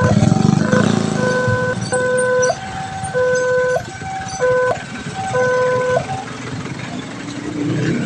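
Railway level-crossing warning alarm sounding a two-tone electronic siren, switching between a lower and a higher pitch about every half second, which stops about six seconds in. A heavy rumble of passing traffic or rolling stock is loud during the first second.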